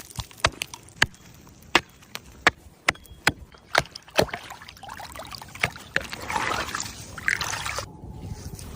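A series of sharp knocks, about one every 0.7 s, then a few seconds of rough, rushing noise that stops suddenly near the end.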